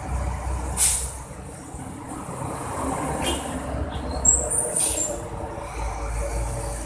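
Road traffic passing close by: trucks and cars with a steady low engine rumble, with a short hiss about a second in and another near five seconds, and a brief high squeal just before the second hiss.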